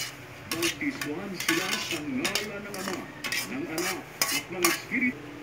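Metal spoon scraping and clinking against a metal colander and a stainless steel mixing bowl as cooked macaroni is scraped out of the colander into the bowl: a string of irregular scrapes and clinks.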